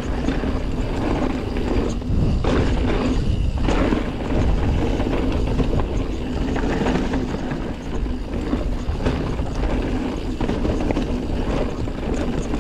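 A Commencal Meta TR full-suspension mountain bike rolling along dirt singletrack, heard from a camera on the bike: a steady low rumble of tyre and trail noise with many small clicks and knocks.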